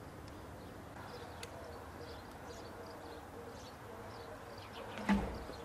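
Birds chirping faintly in the background over a low steady hum, with one sharp thump near the end.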